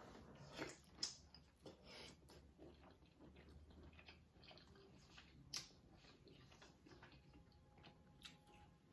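Faint chewing and wet mouth sounds of someone eating a giant prawn dipped in butter sauce, with a few short sharp clicks, the clearest about a second in and again past the middle.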